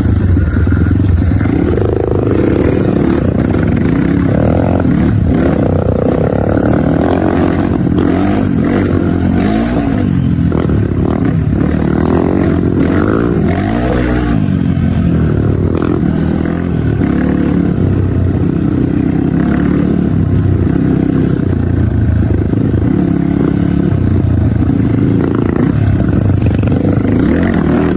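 Kawasaki KLX motorcycle's single-cylinder four-stroke engine running and being revved up and down over and over.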